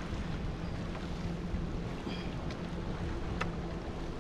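Wind buffeting the microphone and lake water against a kayak hull, with a faint steady low hum underneath. There are a few light clicks and a brief high chirp about halfway through.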